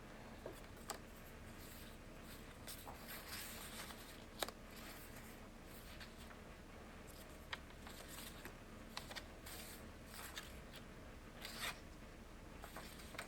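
Faint rustling of paper pages being turned and handled in a handmade paper journal, with a few soft sharp ticks scattered through.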